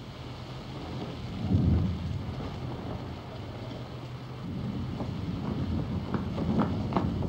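Wind buffeting the microphone: a low rumble that swells about a second and a half in and again from about four and a half seconds in, with a few short knocks near the end.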